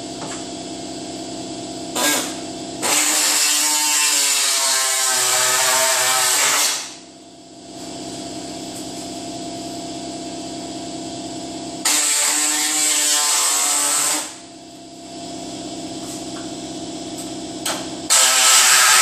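A power tool cutting through the sheet-steel radiator support in three bursts: a long run of about four seconds early on, a shorter one of about two seconds midway, and another starting near the end. A steady hum with fixed tones runs under it.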